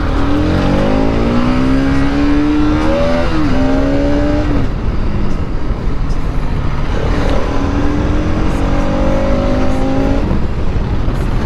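Bajaj Pulsar RS200's single-cylinder engine accelerating hard, its note rising with a brief break of a gear change about three seconds in. It eases off near the middle, then pulls up through the revs again. Wind rumbles on the microphone.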